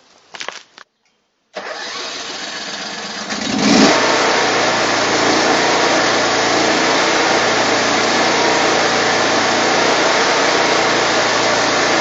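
The Baker 18M band sawmill's 23 HP Briggs & Stratton engine running. About four seconds in it comes up to a louder, steady full run.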